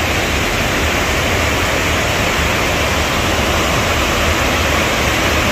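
River water rushing steadily, an even loud wash with a low rumble underneath.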